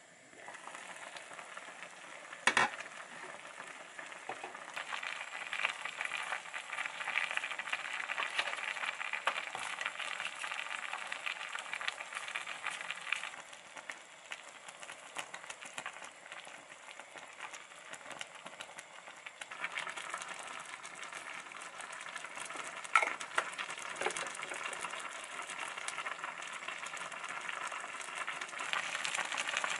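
Soup simmering in an open clay pot, a steady crackling bubble that swells and eases. There is a sharp clack about two and a half seconds in, and another around twenty-three seconds.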